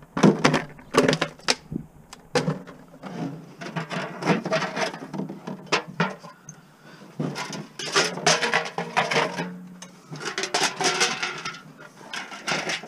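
Scrap being handled by hand: aluminium foil pie plates and plastic jugs crinkling, rustling and clattering in irregular bursts.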